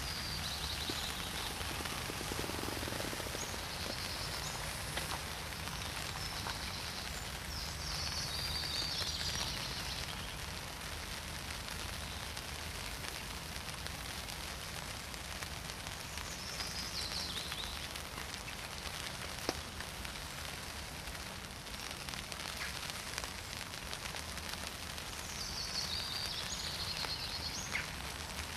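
Steady rain falling, a continuous even hiss, with a few short high chirping phrases now and then.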